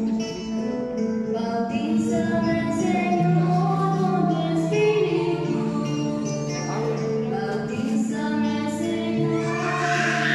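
Music: a woman singing over sustained accompanying notes that change in steps.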